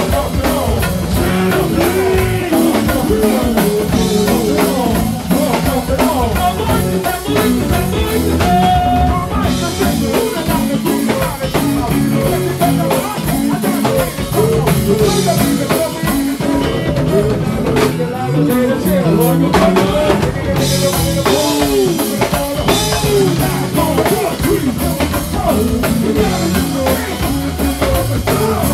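Live go-go band playing: drum kit and congas keeping a steady groove under electric guitar, with vocalists singing over it.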